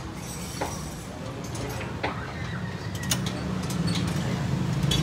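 Scattered sharp metallic clinks of hand tools and parts at a car's front wheel hub and strut during shock absorber work, over a low steady hum that grows louder toward the end.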